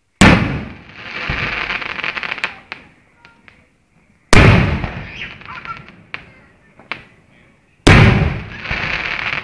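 Fireworks display: three loud aerial shell bursts about four seconds apart, each followed by a second or two of fading crackling, with a few single pops in between.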